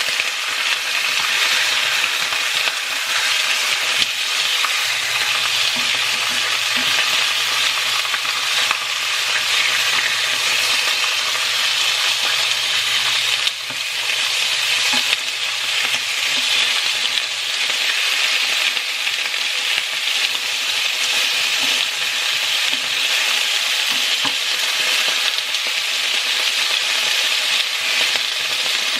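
Thin-sliced pork browning in hot oil in an iron pot, sizzling steadily.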